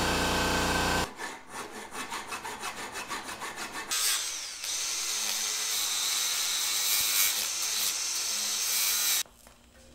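A steady air compressor runs and cuts off about a second in. Then a hacksaw cuts a small metal bracket clamped in a vise, about four or five quick strokes a second. From about four seconds in, a handheld rotary tool's cutoff wheel whines steadily through the metal and stops suddenly near the end.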